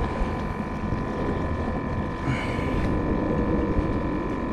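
Wind buffeting the microphone, a steady low rumble, with a faint steady high-pitched whine underneath.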